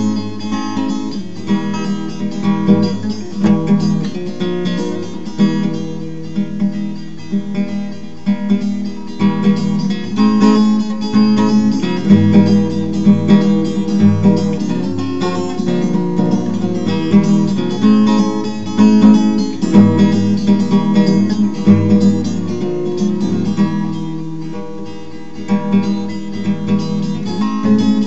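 Background music played on acoustic guitar, strummed and plucked with a steady rhythm.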